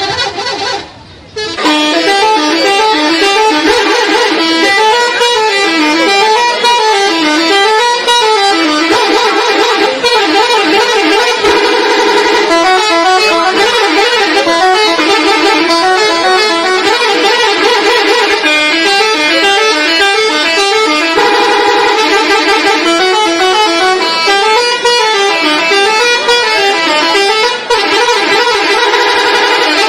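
Indonesian 'telolet' bus horn, a multi-tone electric horn set, playing rapid stepped tunes whose pitch runs up and down over and over. It starts after a brief dip about a second and a half in and keeps going without pause.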